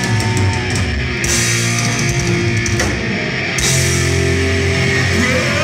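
Heavy metal band playing live through a club PA: distorted electric guitars, bass and drum kit. It plays loud and steady, and the bright cymbal wash drops out briefly twice.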